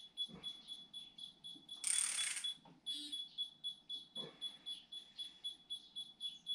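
Light knocks of tools and metal engine parts being handled, near the start and again about four seconds in, with a short hiss about two seconds in. Under them runs a fast, even pulsing high-pitched tone.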